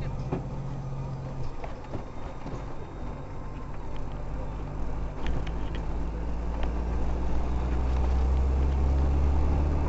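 Car engine and tyre noise heard from inside the cabin, easing off for a couple of seconds around a turn, then building steadily as the car speeds up.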